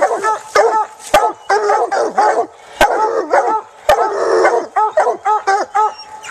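Several coonhounds barking rapidly and excitedly at close range, their barks overlapping. Sharp clicks are mixed in among the barks.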